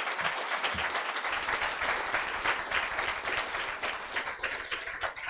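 An audience applauding, many hands clapping at once.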